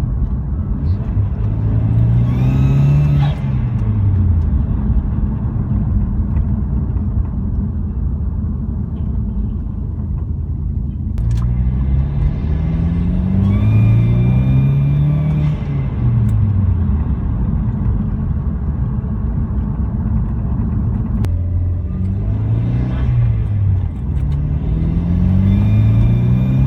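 Car engine rising in revs and dropping back three times over a steady rumble, with a faint high-pitched whine that climbs with each pull; the owner suspects the whine is from the turbo.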